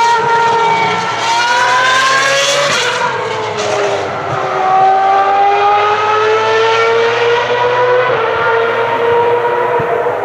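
High-revving Ferrari racing car engine, loud throughout. Its note climbs for about three seconds, drops sharply around three seconds in, and then climbs slowly again before levelling off.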